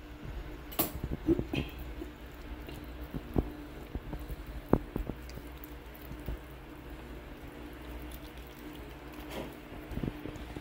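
Kitchen handling sounds: scattered light knocks and clicks with soft wet squishing, over a low steady hum.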